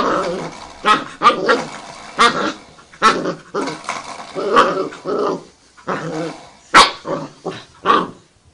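A dog making a rapid run of short, speech-like vocal calls, about two a second, with one sharper, louder bark about seven seconds in.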